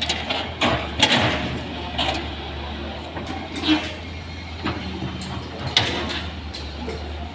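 Daewoo hydraulic excavator running steadily while it works: irregular clanks and clatter as the bucket dumps earth into a trailer and swings back into the trench.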